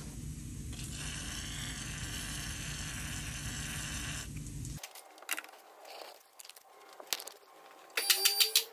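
Aerosol can of penetrating oil spraying onto a car's lower ball joint, a steady hiss lasting about three seconds. After it stops come scattered light clicks, then a quick run of sharp metallic clicks near the end.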